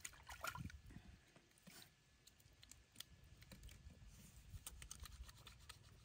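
Faint, scattered little splashes and drips of water in a plastic washtub as water is scooped and poured by hand.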